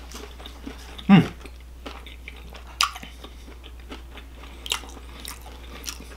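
A person eating from a plastic takeout bowl: chewing, and a few sharp clicks of a fork against the bowl. About a second in there is a short hum from the eater that falls in pitch.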